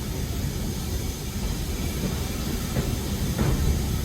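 Heritage railway passenger coach running along the line, heard from inside: a steady low rumble with a couple of faint wheel clicks near the end.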